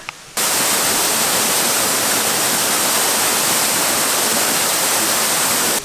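Waterfall rushing, a loud steady roar of falling water close to the microphone, starting suddenly just after the start and falling away just before the end.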